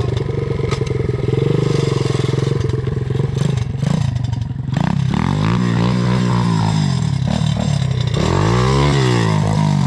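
Off-road engines of a quad bike and a 125 cc pit bike on the move, the nearer quad engine loudest. The engines run steadily for the first half, then rev up and back down twice in long swells.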